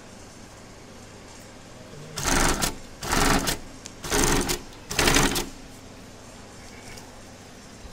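Industrial sewing machine stitching in four short runs, each about half a second long and about a second apart.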